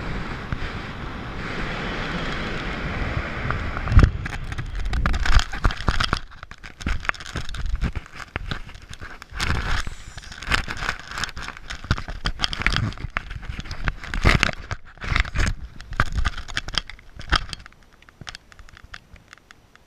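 Air rushing over a wrist-mounted camera's microphone as a parachutist glides in under canopy, then a hard thump of the landing about four seconds in. Irregular knocks and rustling of harness, gear and parachute fabric against the camera follow, dying away near the end.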